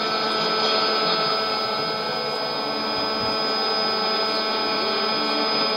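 Shortwave radio reception on 5905 kHz through a Sony ICF-2001D: a steady noisy test signal with several steady whistling tones over it. This is the MBR transmitter's test sound, interfering with the China Radio International Russian broadcast on the same frequency.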